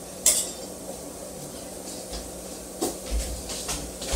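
Kitchen handling noises: one sharp clink of a dish or utensil about a quarter second in, then a few light clicks and low thuds near the end.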